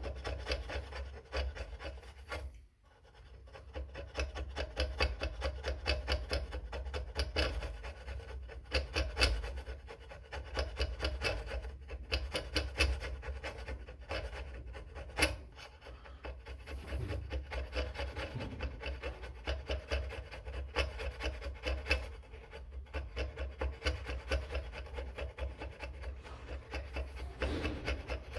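A metal scraper blade scrapes old gasket material off the aluminium mating face of a Triumph Bonneville engine cover in quick, repeated short strokes, with a brief pause about two seconds in.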